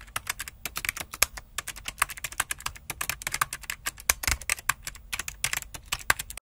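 Typing sound effect: a quick, irregular run of key clicks that goes with on-screen text typing itself out letter by letter.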